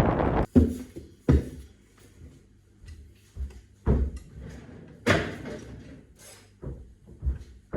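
Wind rumbling on the microphone stops suddenly about half a second in. About six separate knocks and thuds follow, spaced irregularly, with quiet between them.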